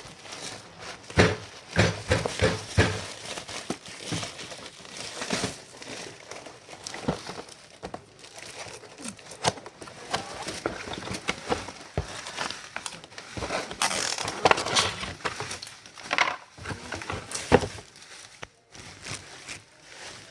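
Parcel packaging being handled and crinkled during unboxing: irregular rustling with sharp crackles and knocks, in two busier bursts near the start and about two-thirds of the way through.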